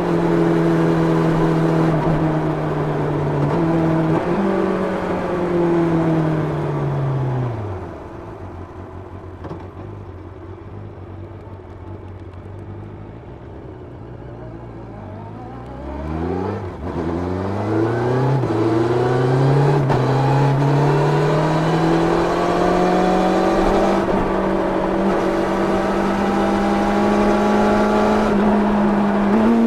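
1990 Yamaha FZR 600's inline-four engine through its stock exhaust. The revs drop away at about four seconds in and settle to a low steady note for around eight seconds. The engine then picks up again, rising in short steps, and runs steadily near the end.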